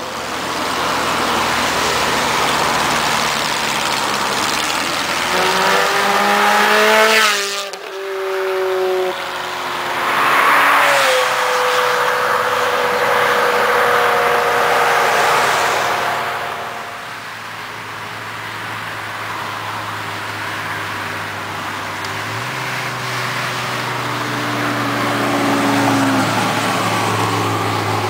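Ferrari V8 sports car accelerating hard, its engine pitch climbing steeply before it passes by at speed about seven seconds in, with a second loud pass soon after. Then steadier engine and road noise from further cars.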